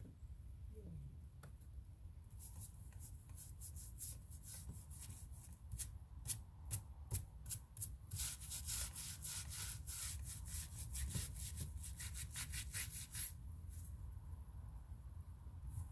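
Scrubbing strokes on a yurt's window panel by hand: separate scrapes at first, then fast, continuous back-and-forth scrubbing that stops a couple of seconds before the end.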